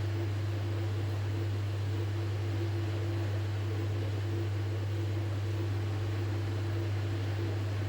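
Washing machine running with a steady low hum and a fainter constant higher tone over an even hiss, with no change in level.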